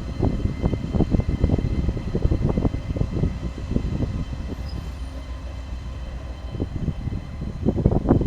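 Stadler EuroDual locomotive and its train running on the rails, with a quick, irregular clatter of wheel knocks over a steady low rumble; the knocks thin out a little midway and come thick again near the end.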